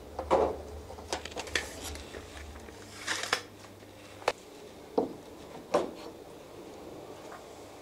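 Workshop handling clatter, then a hammer tapping against the wooden battens fixed on the boat moulds: three sharp knocks about two-thirds of a second apart past the middle.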